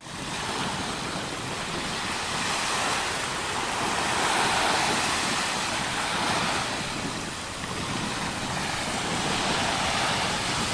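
Steady rush of ocean surf, swelling and easing slowly.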